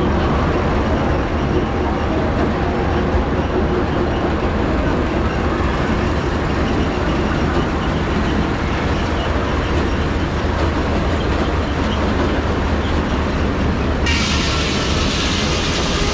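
A 1910 Aultman Taylor 30-60 tractor running steadily under belt, driving a sawmill. About fourteen seconds in, a louder hiss and a steady whine join in.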